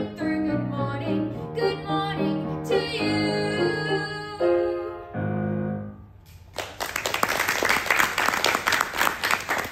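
A girl's singing voice with grand piano accompaniment, ending on a held note and a closing piano chord. After a brief pause about six and a half seconds in, the audience breaks into applause, which is louder than the song.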